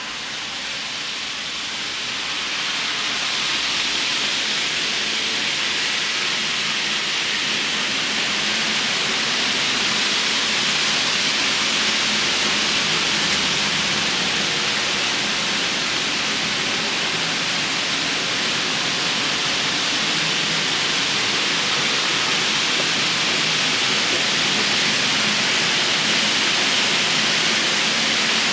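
Steady hissing noise from a model train layout's sound effects, rising over the first few seconds and then holding level, with no rhythm or clear tones.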